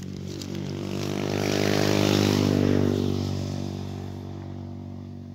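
A motor vehicle passing by: a steady engine note that grows louder to a peak about two to three seconds in, then fades away.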